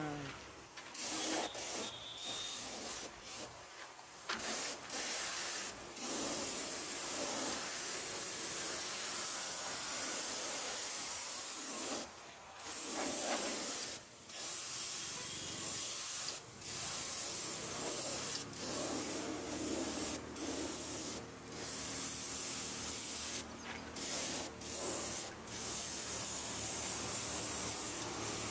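Compressed-air gravity-feed spray gun spraying paint: a steady hiss in long stretches, broken by short pauses every few seconds.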